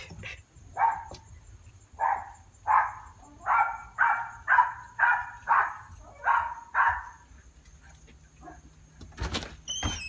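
A small dog barking repeatedly behind a closed front door, about ten sharp barks at roughly two a second, stopping about seven seconds in. Near the end come a few sharp clicks from the door's lock and handle as it is opened.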